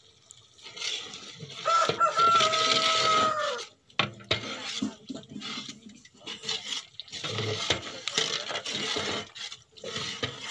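Long-handled ladle stirring thick curry in a large metal pot, scraping and sloshing unevenly. A rooster crows once about two seconds in, the call held and then dropping at its end.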